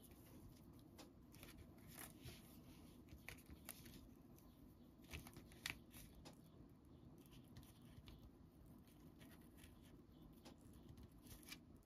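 Faint, scattered small ticks and rustles of paper and string being handled, over a low steady hum.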